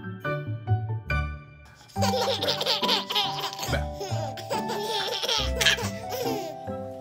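Light background music, then from about two seconds in two one-year-old babies laughing hard together over it.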